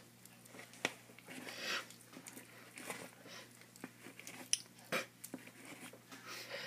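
Tortoise biting and chewing shredded food: irregular crunches with a few sharp clicks.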